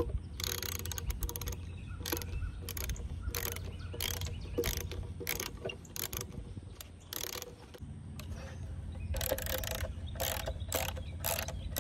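A 9/16 ratcheting wrench clicking in short runs of strokes as bolts are backed out of a wooden mailbox mounting board, with a quieter pause a little past the middle.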